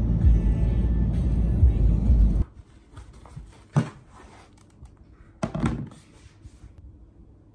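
A loud low rumble that cuts off about two and a half seconds in. Then, in a quiet room, a laptop sleeve is set down on a desk with a single knock, and about two seconds later a tablet in its case is laid onto a laptop with a short clatter of knocks.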